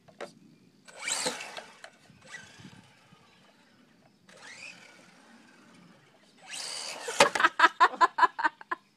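Electric radio-controlled car running on pavement, its motor whining in short throttle bursts that rise in pitch. Near the end comes a louder run of rapid pulses, about eight a second, as it drives in close.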